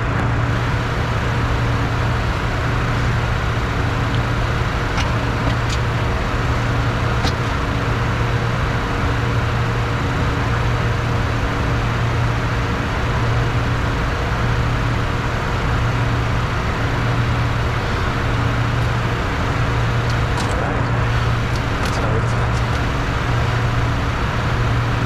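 Bombardier Challenger 604 cockpit noise in the climb: a steady rush of air and engine noise from the twin GE CF34 turbofans, with a low hum that swells and fades about every second and a half. A few faint clicks come near the end.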